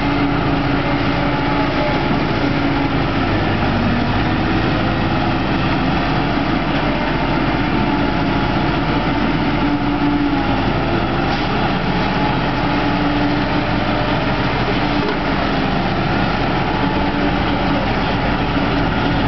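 Caterpillar 992G wheel loader's diesel engine running hard and steadily as the loader works, its pitch drifting up and down as it raises and dumps its bucket into a haul truck.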